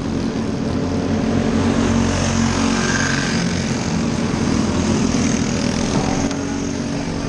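Engines of small winged sprint cars running steadily on a dirt oval under a yellow-flag caution. The drone grows louder as the cars come toward the flag stand and eases off near the end.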